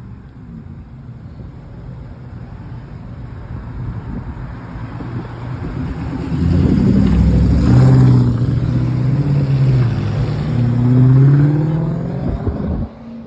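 Car engine revving hard under acceleration, growing louder until it is loud from about halfway through, its pitch rising and falling. It cuts off abruptly near the end.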